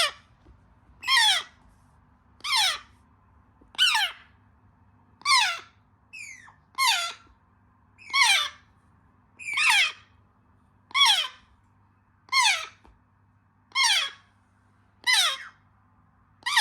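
African grey parrot chick giving harsh, falling begging squawks in a steady rhythm, about one every second and a half, a dozen times.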